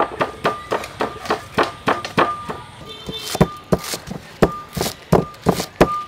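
Repeated sharp knocks, about three to four a second: a pestle pounding garlic and chili in a mortar, and a kitchen knife chopping green onion on a wooden board.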